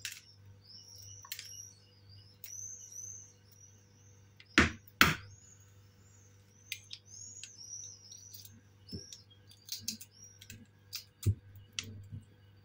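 Small clicks and crackles of eggshell being picked off a soft-boiled egg by hand, with two sharp louder taps about four and a half and five seconds in. Birds chirp over and over in the background, and a faint steady hum runs underneath.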